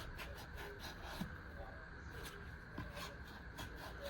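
Faint, irregular small clicks and rubbing from a folding multi-tool being handled, over a steady faint background hum.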